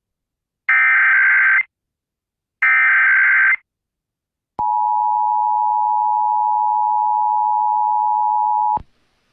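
Emergency Alert System SAME header: the last two of its three warbling data bursts, each about a second long. Then the two-tone EAS attention signal holds steady for about four seconds and cuts off abruptly, marking the start of an emergency alert test broadcast.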